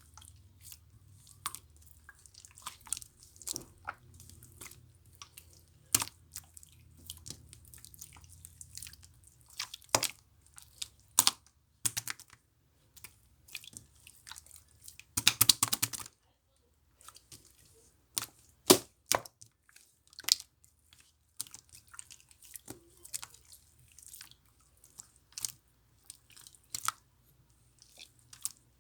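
Two slimes being handled and mixed into a marbled slime, making scattered sharp clicks and pops, with a dense crackling run of pops about halfway through.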